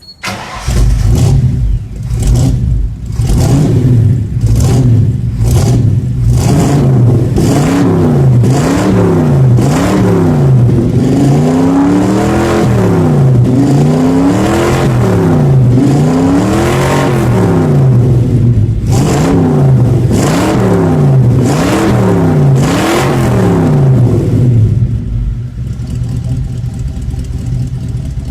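302 V8 engine starting from cold and catching right away, then revved up and down over and over, each rev rising and falling in pitch. Near the end it settles to a steady idle.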